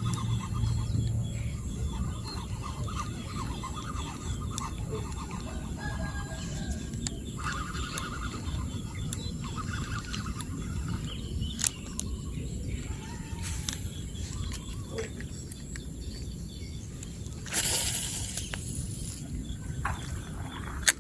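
Outdoor ambience: a steady low rumble with faint chirping calls and scattered clicks, and a brief rushing noise about three-quarters of the way through.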